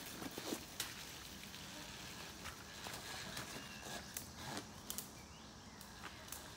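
Talaria XXX electric dirt bike picking its way up a rocky gully: scattered clicks and knocks of tyres and chassis on loose rock over a faint steady background, with no engine sound, thinning out over the last second or two as the bike moves away.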